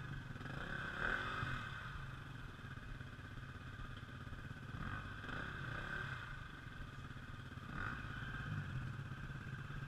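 KTM dirt bike engine running at low revs, with a few short surges of throttle as its rear tyre spins through slushy snow and mud in the rut.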